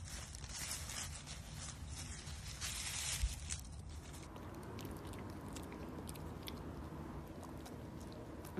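Dogs rustling and shuffling through dry fallen leaves on grass, with a low thump about three seconds in. Then a dachshund puppy gnaws on a rubber toy: a run of small, sharp clicks of teeth on rubber.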